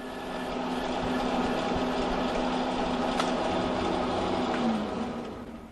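Metal lathe running under a turning cut, a steady motor hum with cutting noise over it. Near the end the hum drops in pitch and fades as the lathe is switched off and spins down.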